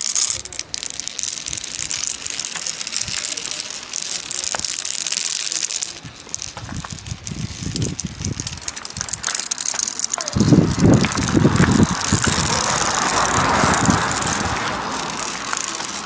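Marbles rolling and clattering down carved grooves in a stone marble run: a continuous rolling rattle with many small clicks. Deeper rumbling bursts come in the second half.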